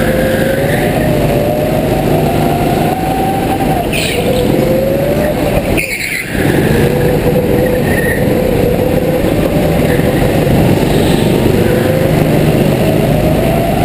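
Go-kart driven hard round a track, heard from on board: its motor's whine climbs along the straights and drops back in the corners over a steady rumble. There is a brief lift off the throttle about six seconds in.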